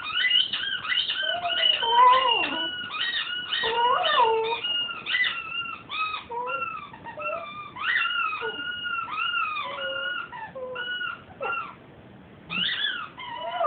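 Seven-month-old cocker spaniel puppy howling and whimpering in a long run of short, wavering high notes, mixed with the squeaks of a squeaky toy he is chewing. The calls die down briefly near the end, then start again.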